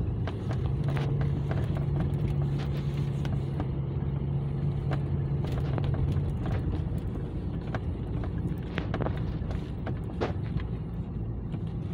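Car driving slowly on a snow-covered road, heard from inside the cabin: a steady low engine hum and road rumble, with scattered short clicks. The engine hum drops away about six and a half seconds in, leaving the rumble.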